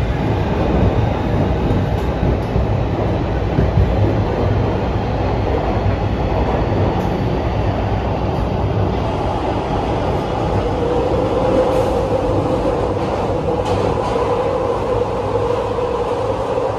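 In-car noise of a PATH PA5 subway car running underground: a steady rumble of wheels on rail. A steady hum joins in about two-thirds of the way through.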